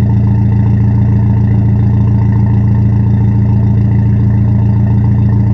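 Exhaust of a 2003 Audi A4 Avant's 1.8T turbocharged four-cylinder engine idling steadily after a cold start, heard at the tailpipes. It runs through a custom 3-inch stainless downpipe and 2.5-inch pipes into a chamber and splitter, exiting at the stock tips.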